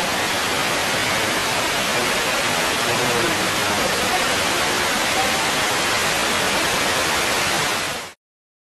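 Seven-story indoor waterfall: a steady rush of falling and splashing water. It cuts off abruptly near the end.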